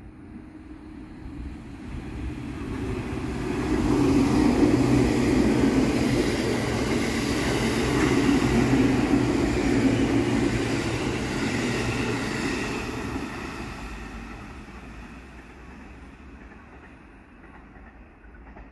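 JR Kyushu 783 series electric limited express train passing through the station without stopping. Its rumble builds over the first few seconds, stays loud for about nine seconds as the cars go by, then dies away.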